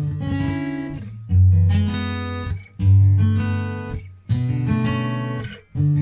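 Background music: guitar chords strummed, a new chord about every one and a half seconds, each fading before the next.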